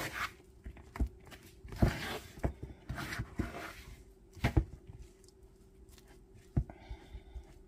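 A metal utensil stirring shaggy biscuit dough in a mixing bowl: irregular soft knocks and short scrapes against the bowl, about one every second or so, with a louder tap a little after four seconds in.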